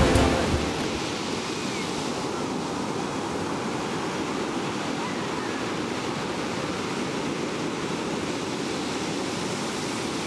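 Ocean surf: a steady wash of breaking waves, with the tail of a song cutting out in the first second.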